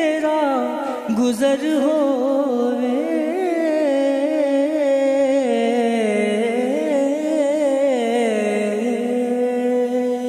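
A single voice sings a Punjabi devotional naat in long, ornamented melismatic phrases, with the pitch winding up and down. Near the end it settles onto a long held note.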